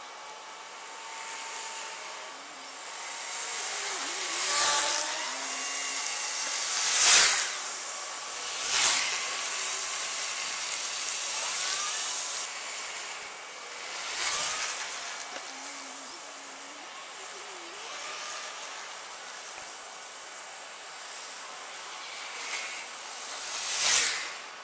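Road traffic: cars passing one at a time over a steady hiss, each a brief rise and fall of tyre and engine noise, about five in all, the loudest about seven seconds in and another near the end.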